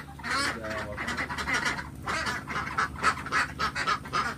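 A flock of laying ducks in their pen quacking and calling nonstop, many short overlapping calls several times a second.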